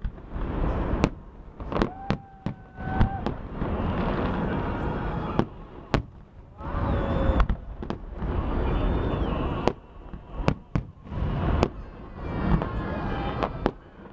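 Fireworks salute: a rapid, irregular series of sharp bangs from bursting shells over a continuous low rumble, with a few brief whistles, one falling in pitch, about two and seven seconds in.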